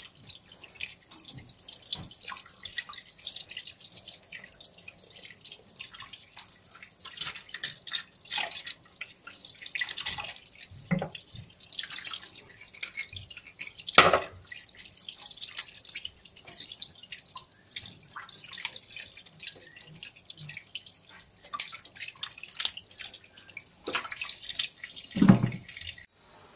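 Tap water running and splashing into a stainless steel sink as raw chicken pieces are rinsed and squeezed by hand, in uneven wet splashes and drips. There is a sharper splash about halfway through and another loud one near the end.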